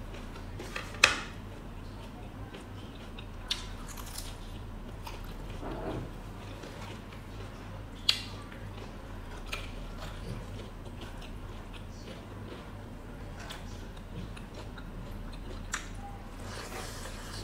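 Close-miked eating with hands: wet chewing and mouth sounds, broken by about five short sharp crunchy clicks of biting, the loudest about a second in.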